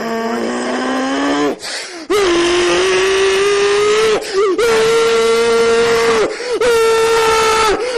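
A voice wailing in long held notes: a rising cry in the first second and a half, then three or four loud sustained wails, each about two seconds, with short breaks between them.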